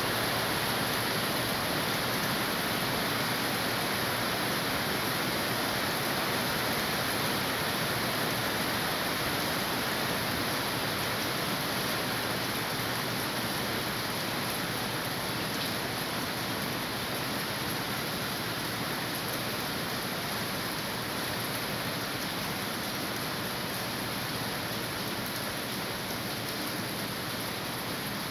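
Rain falling steadily, an even hiss that eases slightly over its length.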